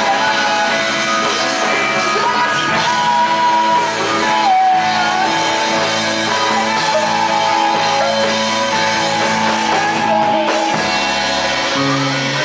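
Live rock band playing a song, with guitar and singing.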